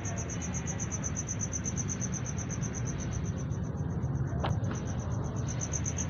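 Cricket chirping steadily in a rapid high-pitched pulse, about seven chirps a second, over a low hum. A single short squeak about four and a half seconds in.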